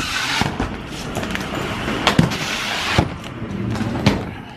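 Suitcases sliding and scraping down a metal baggage slide, a rough hiss over the first three seconds, with several sharp knocks as bags bump and are pulled off.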